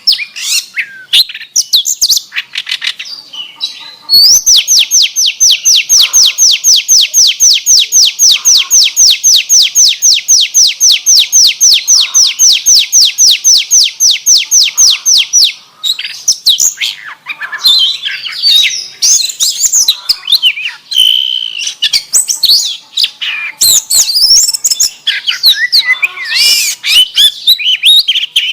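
Oriental magpie-robin (kacer) singing a song filled in with canary-like phrases. A rapid trill of evenly repeated notes runs for about eleven seconds from about four seconds in, with varied high chattering and whistled phrases before and after.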